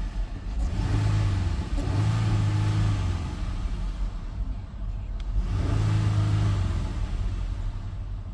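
2018 Dodge Durango's 3.6-litre V6 engine revved three times from idle, each rev swelling for about a second and then settling back. It revs up hesitantly, and the auctioneer says it could use a tune-up.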